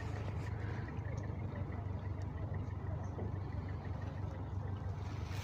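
Steady low engine hum of a boat's motor running on the river.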